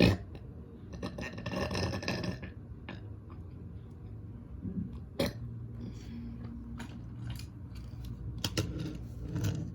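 A long human burp beginning about a second in, with a few sharp clicks and knocks around it.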